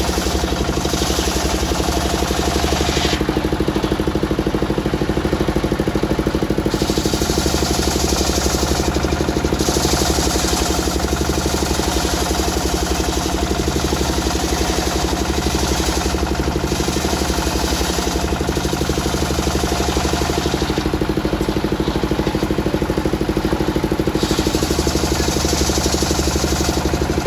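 Engine-driven circular sawmill running steadily, with a higher hiss that swells and fades several times.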